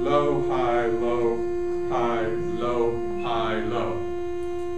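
A steady single-pitched tone from the loudspeaker driving a Rubens' tube, a gas-filled flame pipe, holding one pitch throughout. A person's voice sounds several times over it and stops about four seconds in.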